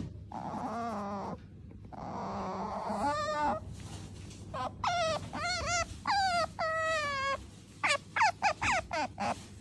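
Asian small-clawed otter whining while being petted: a string of wavering, pitched squeaky calls. Near the end they break into a quick run of about six short chirps.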